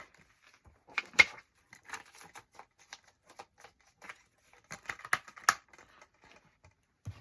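Plastic Blu-ray cases being handled: scattered light clicks and taps, with sharper clicks about a second in and again near five seconds in.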